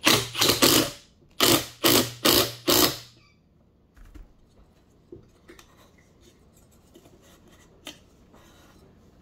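Cordless impact driver hammering in short trigger bursts, several to a second, with the motor's hum under them, tightening the nut that holds the impellers on the pump shaft. It is kept brief so the nut is not overtightened. It stops about three seconds in, followed by a few light clicks and knocks as parts are handled.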